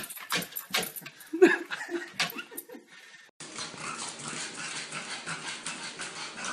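A dog's claws clicking and tapping on wooden stair treads as it comes down the stairs, with a brief whimper about a second and a half in. After a sudden cut, a steady hiss with faint taps as a pug climbs stairs.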